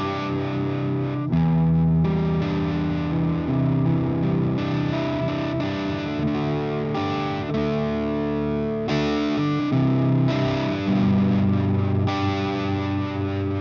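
Electric guitar played through a Kitsune fuzz pedal, a hand-built Big Muff-style fuzz: thick, sustaining fuzz-distorted chords and notes, changing every second or so.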